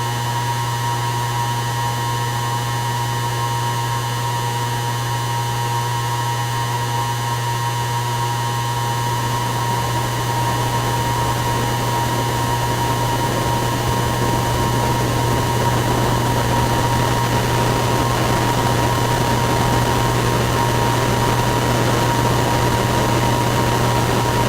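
DIY electronic noise synthesizer droning: a steady low hum under a few held high tones and hiss, the hiss growing thicker and a little louder about ten seconds in.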